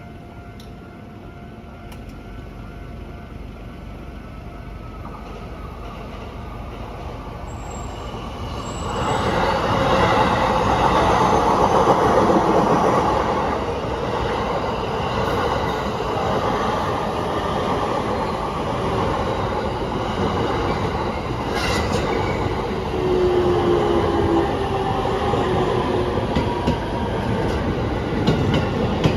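A train approaching and passing a railroad crossing in Japan. It builds up over the first several seconds, then is loud from about nine seconds in with the running noise of the wheels on the rails.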